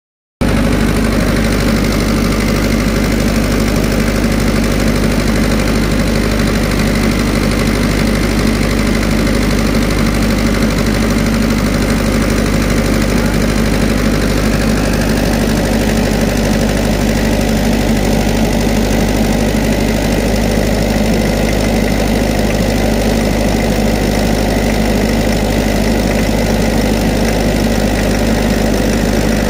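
Four-cylinder diesel engine idling steadily with its rocker cover removed.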